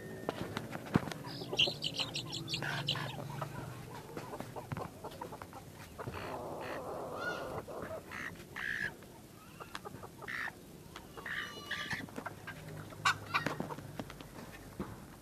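Labuyo chickens clucking, with scattered short calls and a quick run of high repeated notes about two seconds in.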